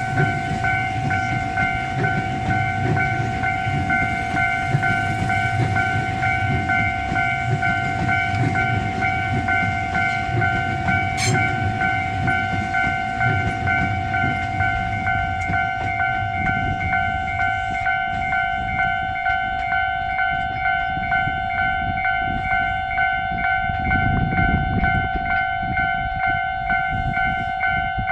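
Japanese railway level-crossing alarm ringing throughout in a steady repeating tone. Under it is the low rumble of a Tobu 200 series limited express train pulling out past the crossing. The rumble fades about two-thirds of the way through and swells briefly again near the end.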